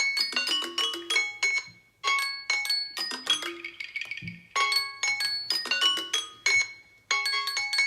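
A smartphone ringtone playing: a short marimba-like phrase of quick bright notes that repeats about every two and a half seconds.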